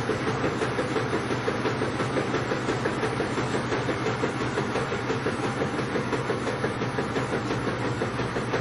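Washing machine drum on its spin cycle: a steady mechanical whirring with a hum and a rapid, even flutter.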